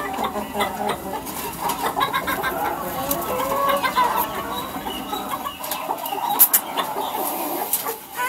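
Chickens clucking, many short calls overlapping one another, with a couple of sharp clicks about six and a half seconds in.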